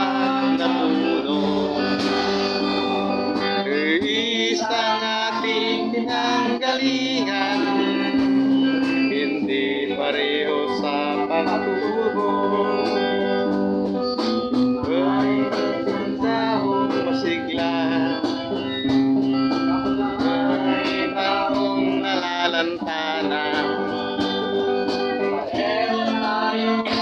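Acoustic guitar playing with a man singing into a microphone.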